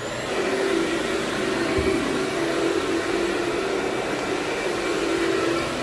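Vacuum cleaner starting up and running steadily, a dense rushing noise with a steady hum underneath.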